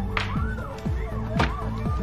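Background music with a steady beat: deep bass notes that drop in pitch about twice a second under a held melody line, with two sharp clap-like hits.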